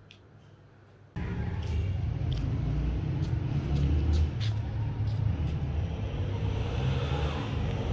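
Wind buffeting the microphone outdoors: a loud, uneven low rumble that starts suddenly about a second in, with a few sharp clicks over it.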